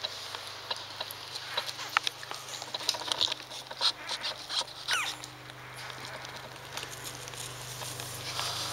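Standard poodle puppy nursing on its mother: wet suckling clicks and smacks, with one short high squeak that falls in pitch about five seconds in.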